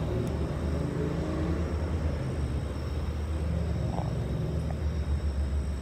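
A low, steady rumble outdoors at night, of a kind the listener could not place.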